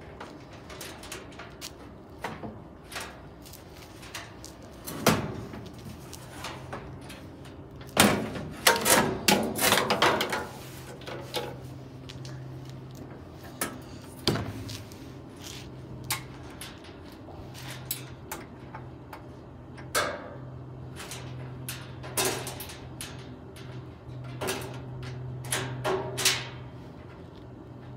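Steel top and lid of a 1974 Whirlpool belt-drive washer being handled and shut: a string of sheet-metal knocks, clanks and clicks, busiest about eight to ten seconds in. A steady low hum runs underneath from about six seconds in.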